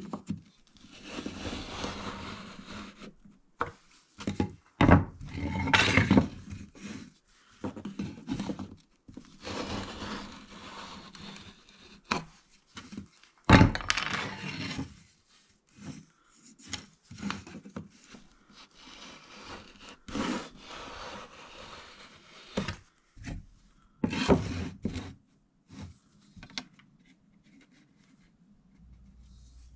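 Wooden boards being handled and set down on a wooden workbench: irregular scrapes and knocks of wood on wood, with a few sharp knocks, growing quiet near the end.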